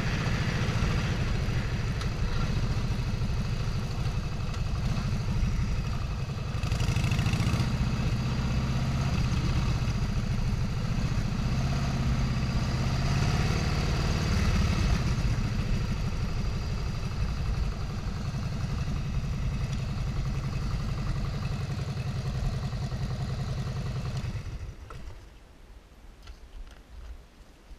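A vehicle engine running steadily, then cutting off about 24 seconds in, leaving a much quieter background.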